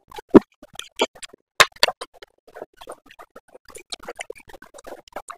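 Close-miked eating of noodles: irregular small clicks and smacks of chewing, with two sharper knocks about half a second and a second and a half in.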